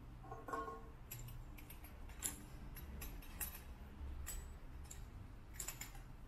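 Faint clicks and light clinks as glass salt and pepper shakers with metal caps knock against their chrome-plated wire rack while it is handled, with a brief ringing note about half a second in.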